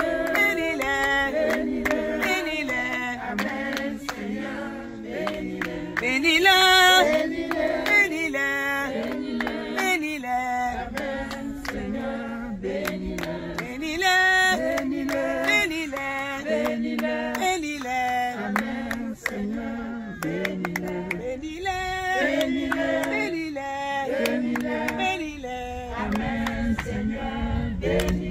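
A group of voices singing a worship chant together without instruments, with some hand clapping.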